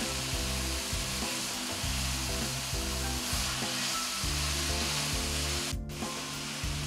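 Grated ash gourd (petha) sizzling as it fries in ghee in a pan, stirred with a wooden spatula, under background music. The sound drops out for an instant near the end.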